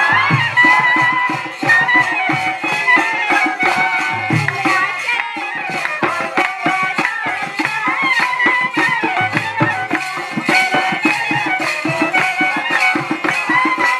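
Traditional Bengali folk music: a quick, steady beat under a high, wavering melody that slides between notes.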